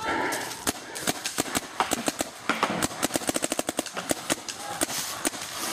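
Paintball markers firing: scattered single pops, then a fast string of about ten shots a second in the middle.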